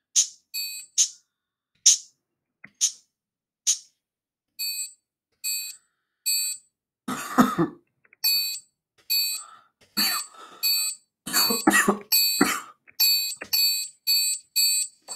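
Drum-machine samples triggered one key at a time on a web sampler: sparse shaker hits about once a second, then a quicker pattern of bright, ringing triangle hits. A few fuller, noisier hits come in, the first about seven seconds in.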